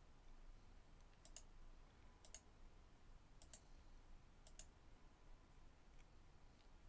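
Four faint computer mouse clicks about a second apart, each a quick double tick, with a fainter click near the end; otherwise near silence.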